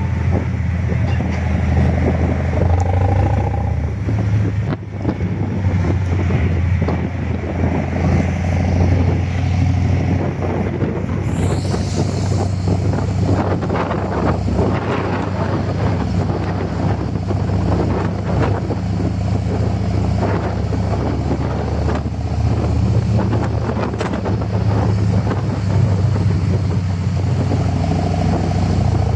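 Harley-Davidson V-twin engine and exhaust running steadily as the motorcycle is ridden, with a deep, even exhaust note and wind buffeting the microphone.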